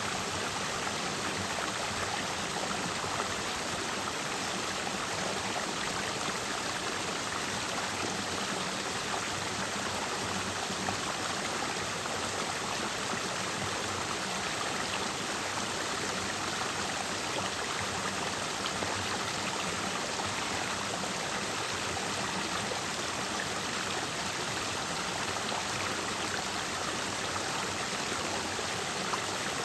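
Clear mountain stream flowing and splashing over rocks, a steady rushing babble.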